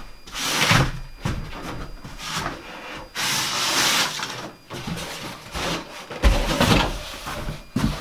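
A cut wooden wall board being pushed and worked into place against the framing: wood scraping and rubbing in several strokes, one longer scrape about three seconds in, and a heavy knock a little after six seconds as it is seated.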